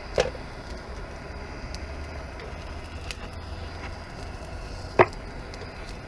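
Two sharp clicks, one just after the start and a louder one about five seconds in, over a steady low rumble.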